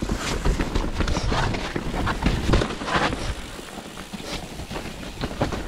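Mountain bike descending a wet, rocky trail: tyres rolling and clattering over rocks and roots, with irregular knocks and rattles from the bike over the rough ground and a steady low rumble underneath.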